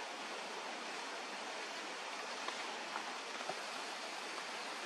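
Steady, even outdoor background hiss with no distinct source, and a few faint ticks around the middle.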